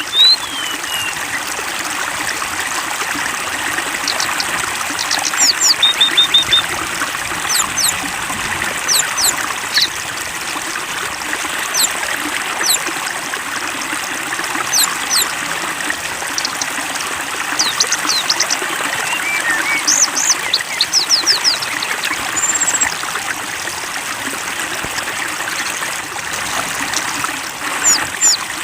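Steady trickling, splashing water like a small stream or fountain. Short, high bird chirps come through it every few seconds, often in quick runs of several notes.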